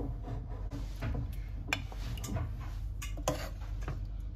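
A few light clinks and taps of a serving spoon against a pot and plates as food is dished up, over a low steady hum.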